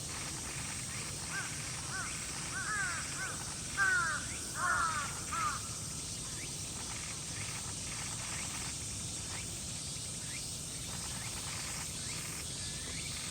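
A bird giving a quick run of short, harsh call notes for a few seconds, louder in the middle, with a few fainter notes later, over a steady high hiss.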